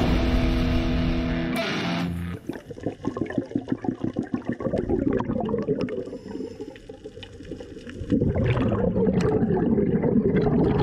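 A distorted electric-guitar chord rings for about two seconds and cuts off. It is followed by irregular bubbling and gurgling of air bubbles rising underwater, which turns into a steadier bubbling rush near the end.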